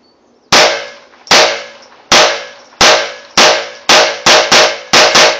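Unsuppressed handgun firing about ten shots, the first about half a second in, spaced under a second apart and coming faster toward the end, each crack followed by a short ringing decay.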